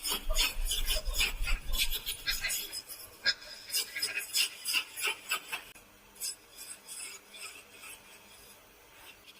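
Hand woodworking: a rapid, irregular series of short scraping, rasping strokes of a tool on wood, thinning out after about five seconds.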